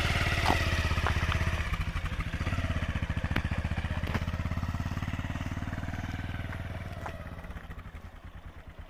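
A motorcycle engine running as the bike pulls away slowly, fading as it rides off, with a few sharp clicks along the way.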